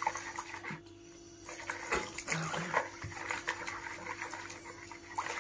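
A hand swishing and splashing in pickling brine in a plastic bowl, with small clicks and knocks, over a steady faint hum.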